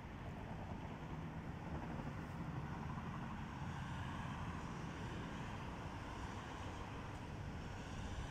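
Steady rumble of road traffic in the distance, an even low hum with no single vehicle standing out.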